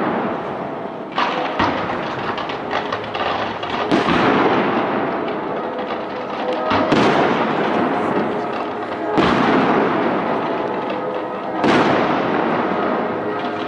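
Fireworks display: shells burst with sharp bangs about every two to three seconds, six in all, each trailing off into a long rumbling echo and crackle.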